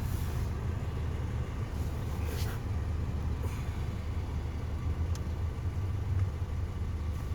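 Steady low hum of a 2020 Toyota Corolla running with its HVAC on, heard inside the cabin, with a few short, faint clicks and whooshes.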